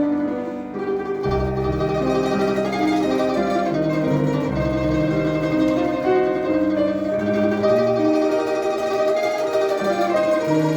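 Instrumental chamber music: plucked string instruments play a melody in several voices over an accompaniment with low bass notes.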